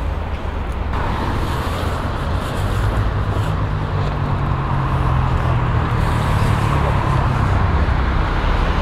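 Steady low rumble and hiss of outdoor background noise, a little louder from about a second in.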